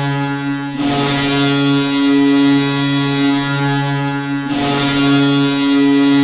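Hockey arena goal horn blowing one long, deep chord, held steady. A wide rush of noise swells over it about a second in, and again a little past four seconds.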